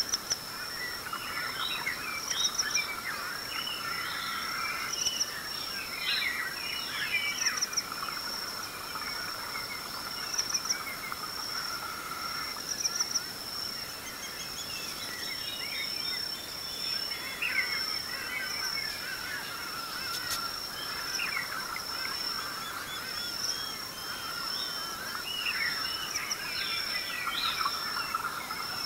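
East African dawn chorus: many birds calling and singing over one another in chirps, trills and quick sweeping notes, over a steady high-pitched insect trill.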